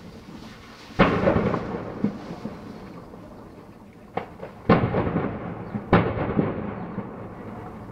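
Explosions at a burning warehouse complex: a heavy blast about a second in, a smaller bang near the middle, then two more heavy blasts close together, each followed by a long rumbling echo that dies away.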